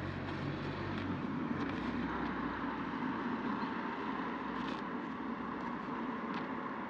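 A steady mechanical rumble with a low hum that fades about a second in, with a few faint ticks.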